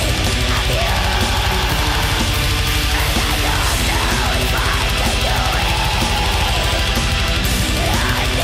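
Loud, aggressive heavy-metal-style music with a steady driving beat.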